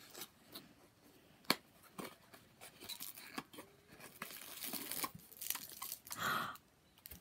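A small gift box and its packaging being handled and opened: faint scattered rustles and clicks, with one sharp click about a second and a half in and a short crinkle of a plastic wrapper near the end.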